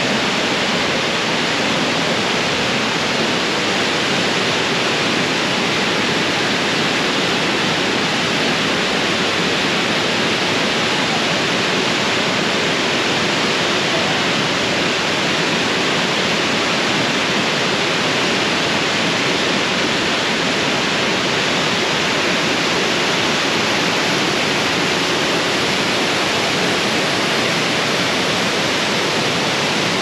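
Waterfall cascading down sloping rock slabs into a pool: a steady, unbroken rush of water.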